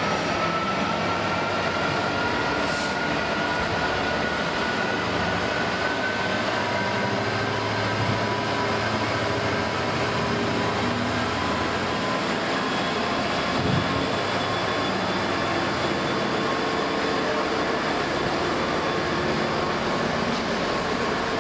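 Train passing close by on the line: a steady rumble and roar of wheels on rail for the whole stretch, with a faint whine that rises slowly in pitch during the first half.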